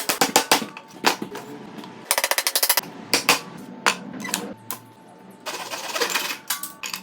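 Woodworking sounds: a string of sharp, irregular knocks and clicks, with a quick run of about a dozen rapid strokes a couple of seconds in.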